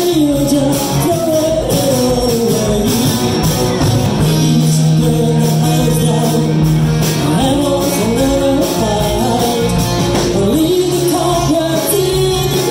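Live band playing: a woman singing lead over electric guitar and drums, with a steady beat.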